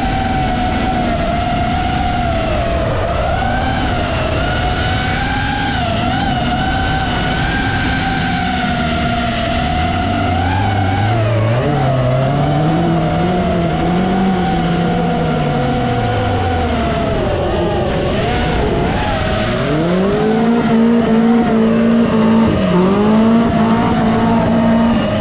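FPV racing drone's motors whining steadily, their pitch wavering with the throttle. Below them a race car engine revs up and down, climbing and falling away about halfway through and holding high revs with a brief dip near the end.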